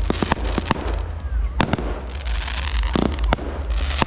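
Aerial fireworks going off: an irregular run of sharp bangs and crackling pops, about a dozen in four seconds, over a steady low rumble.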